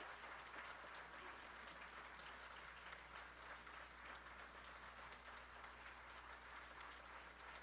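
Audience applauding, faint and steady, a dense patter of many hands clapping.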